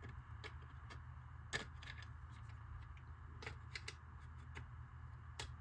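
Small plastic tail-light parts being handled and fitted against a hard plastic RC body: scattered light clicks and taps, the sharpest about a second and a half in, around three and a half seconds and near the end, over a steady low hum.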